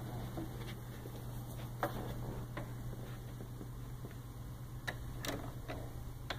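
Irregular faint clicks and taps, about six scattered through, over a steady low hum: the unexplained noises of a quiet hotel corridor at night.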